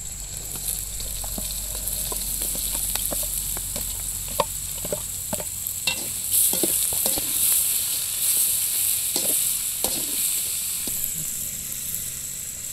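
Chopped onions sizzling in hot oil in a kadai, with short scrapes and clinks of a ladle as they are stirred. The sizzle grows louder about halfway through.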